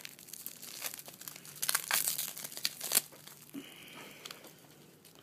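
Watch packaging wrapping being pulled off by hand, crinkling and tearing in a run of crackles that is densest and loudest about two to three seconds in, then dies down.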